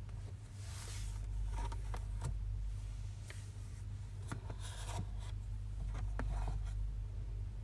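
A metal ladle scraping and stirring in a nonstick wok of chicken, garlic and onion frying, with a few scrapes and light clicks spread through, over a steady low hum.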